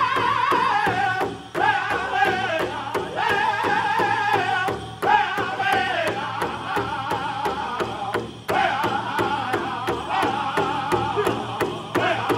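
Powwow drum group singing a chicken dance song in high voices, the singers striking one large shared powwow drum together in a steady beat. The singing breaks off briefly between phrases while the drumbeat carries on.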